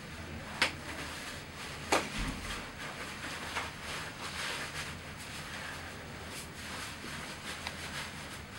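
Rustling of a disposable isolation gown and nitrile gloves as long-cuff gloves are pulled on over the gown cuffs. There are two sharp snaps, about half a second and two seconds in.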